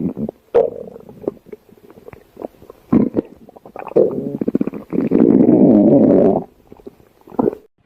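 Stomach growling: a series of gurgling rumbles with rapid crackling. The longest and loudest runs for over a second, about five seconds in.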